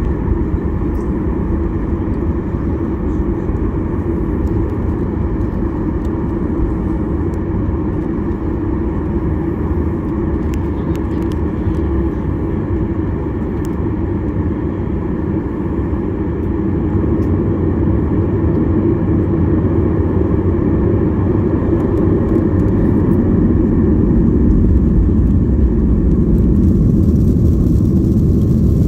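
Cabin noise of a Boeing 737-800's CFM56-7B jet engines, heard from a seat behind the wing: a steady low rumble and hum that grows louder through the second half as the engines build power.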